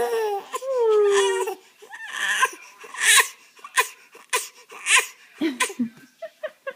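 A baby's drawn-out cry that falls in pitch, then four short, breathy coughs spaced well under a second apart: the put-on cough a baby uses to get attention.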